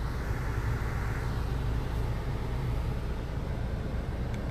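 Steady low hum inside a Honda CR-V's cabin, with a soft rustle of the phone being moved about a second in.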